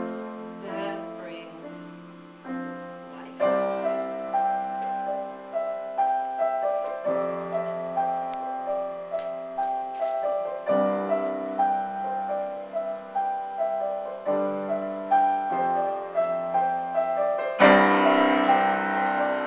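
Solo piano playing a slow instrumental passage, a new chord struck every few seconds and left to ring, growing louder near the end.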